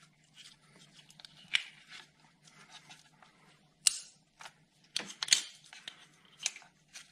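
Plastic electrical wiring connectors being handled and pushed home on an engine: a scattering of sharp plastic clicks and small rattles, the loudest about four and five seconds in. The clicks are the sign of the connectors seating fully.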